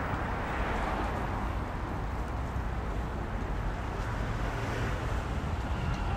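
Steady city street noise: traffic passing with a constant low rumble.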